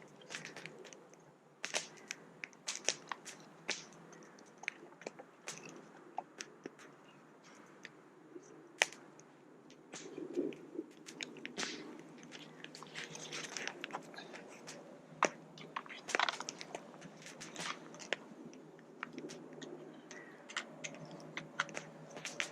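Small wood fires crackling, with irregular sharp pops and snaps, some louder than others.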